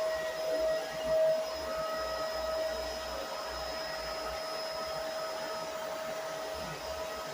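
Vacuum cleaner running with a steady motor whine over a rushing hiss, a little louder and uneven in the first second or so.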